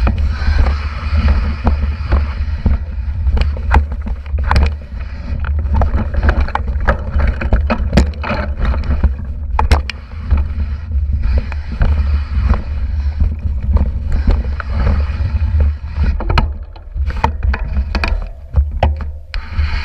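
Mountain bike rolling over a rocky trail, heard from a microphone mounted on the bike by the front wheel: a steady low rumble of vibration and wind on the microphone, with frequent sharp clicks and knocks as the tyres strike the stones.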